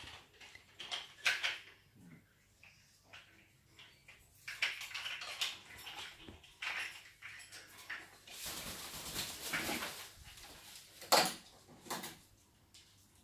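Macaws playing on their perches: scattered scrapes, clicks and rustles, with a longer scraping stretch and then two sharp knocks near the end.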